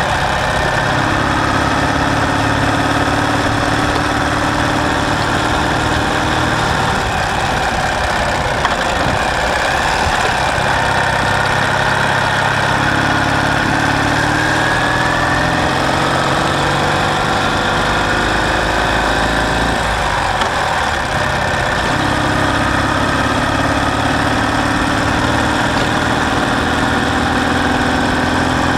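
Ural sidecar motorcycle's flat-twin engine running steadily, its note dipping briefly twice and gliding in pitch with throttle.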